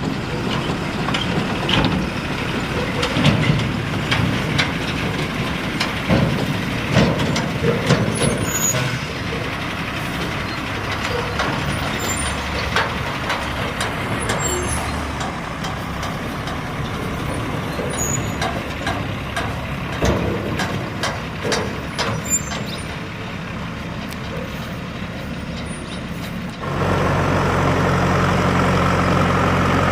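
Heavy diesel machinery working, with many scattered knocks and clanks over a rough engine sound. Near the end an engine suddenly gets louder and holds a steady, even note.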